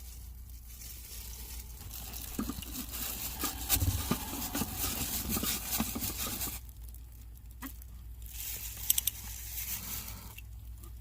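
Crinkling, scraping handling noise with scattered small clicks as a new cartridge-type oil filter element is worked by hand, then a few sharp clicks near the end.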